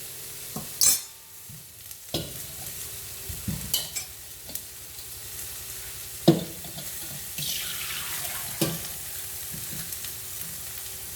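Vegetable stock being poured through a sieve into a pan of vegetables sautéing in butter, with a steady sizzle that swells for a moment past the middle. Sharp clinks and knocks of the sieve and utensils against the pan come every second or two, the loudest about six seconds in.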